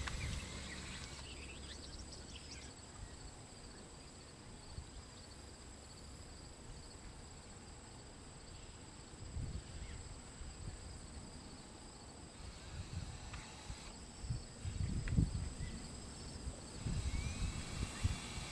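Steady high-pitched drone of insects such as crickets in rural grassland, with occasional low rumbles on the microphone in the second half.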